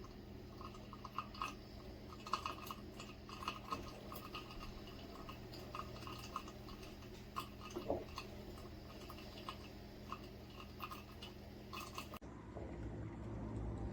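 Moccamaster drip coffee maker brewing: irregular gurgling pops and clicks as the heated water bubbles up through the machine, over a steady low hum. Near the end the sound changes abruptly to a duller, fuller wash of flowing liquid.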